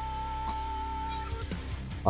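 Background music: a held note over a steady low bass that stops about a second and a half in, followed by a few faint clicks.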